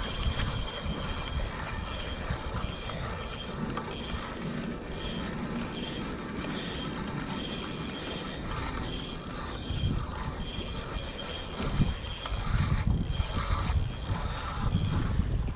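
Spinning reel being cranked steadily to reel in a hooked carp, its gears whirring with a high note that pulses with each turn of the handle. A louder low rumble comes in over the last few seconds.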